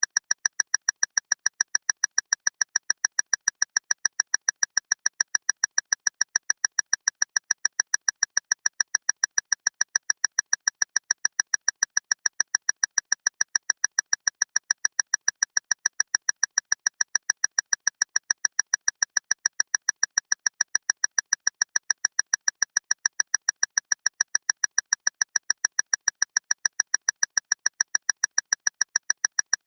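Loud clock ticking fast and mechanically even, several sharp ticks a second without any change.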